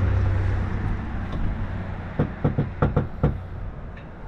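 Knocking on a front door: a quick run of about six sharp knocks, about two seconds in. Before it, a low engine rumble from a vehicle fades away.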